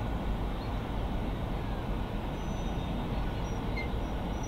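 Steam locomotive hauling a passenger train, heard from a distance as a steady low rumble of the engine working and the coaches rolling.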